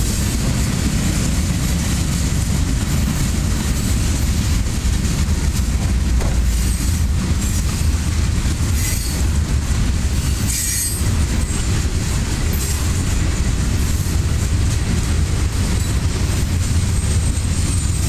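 Loaded tank cars and boxcars of a Norfolk Southern freight train rolling past, a steady rumble of steel wheels on the rails, with a brief high wheel squeal about halfway through.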